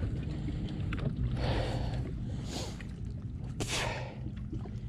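A person breathing close to the microphone, three exhales about a second apart, over a low steady hum.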